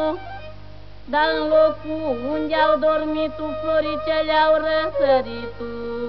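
Film soundtrack music: a wordless melody of held notes and quick ornamental slides and runs, with a short pause about half a second in.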